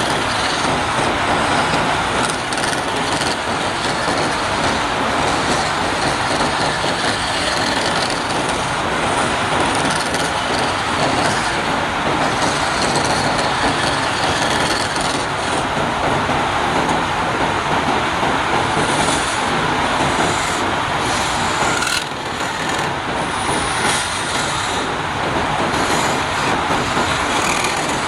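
Wood being turned on a lathe: a cutting tool shaving the spinning wood, a steady scraping noise that dips briefly once about 22 seconds in.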